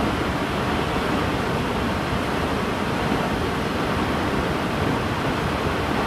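Waterfall: water falling in a steady, even rush, heaviest in the low and middle range, with no let-up.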